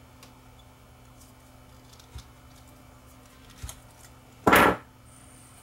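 Small cutters clipping the metal parts inside a dismantled vacuum tube: two faint clicks, then one loud short crack near the end.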